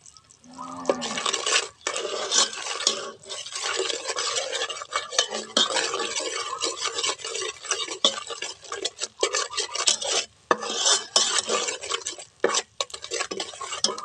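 Metal ladle stirring and scraping around a metal pot of caramelizing palm sugar, with frequent clinks against the pot and a few brief pauses.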